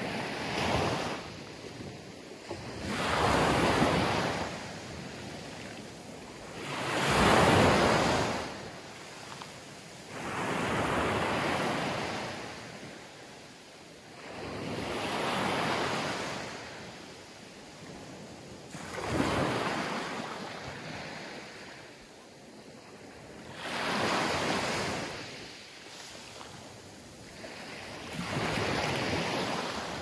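Small Mediterranean Sea waves breaking and washing up a sand-and-pebble beach. A new wave surges in every four seconds or so, each swelling and fading over two to three seconds.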